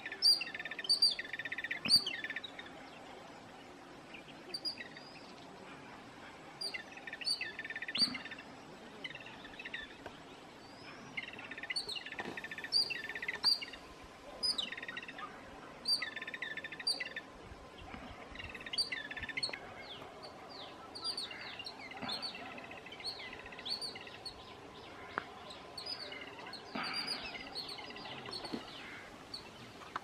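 Jungle babblers calling: short chirps repeated in quick bunches every few seconds, coming closer together in the second half.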